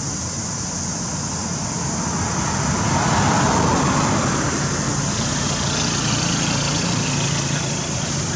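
Steady background traffic noise from passing road vehicles, swelling a little about three seconds in.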